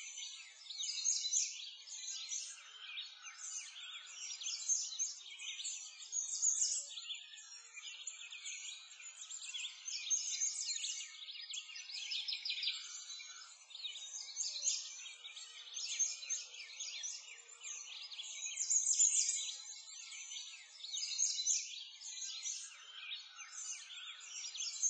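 Dense, continuous chorus of many small birds chirping and twittering, all high-pitched, with no lower sounds beneath.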